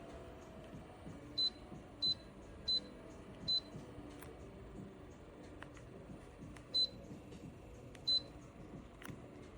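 Six short electronic beeps, all on one high pitch, coming at uneven intervals over a faint steady background hum.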